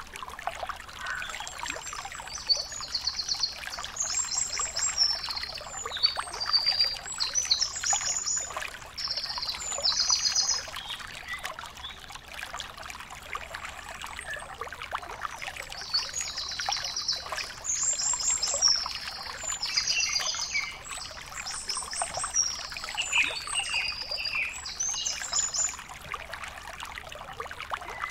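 Steady trickling water, with a bird singing short high trills in two bouts, one starting about two seconds in and another starting around sixteen seconds in.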